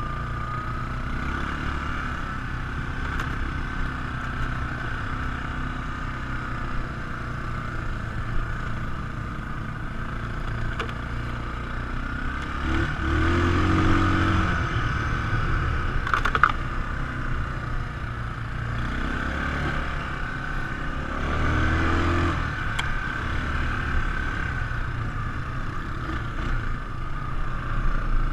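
ATV engine running steadily while riding, revving up twice, about halfway through and again later, with a sharp knock between the two revs.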